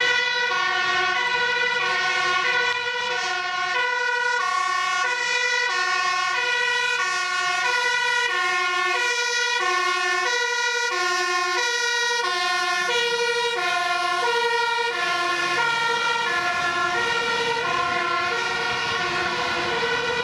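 Two-tone sirens of two Dutch fire engines on an urgent run, each stepping steadily between a high and a low note, the two sounding together out of step.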